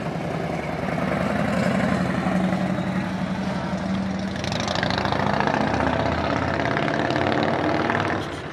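A motor vehicle engine idling close by, a steady low hum that holds one pitch throughout.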